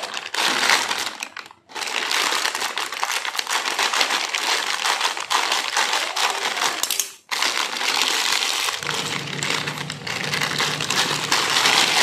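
Plastic courier mailer bag crinkling and rustling loudly as it is pulled at and cut open with scissors, with two short pauses, about a second and a half in and about seven seconds in. A steady low hum joins near the end.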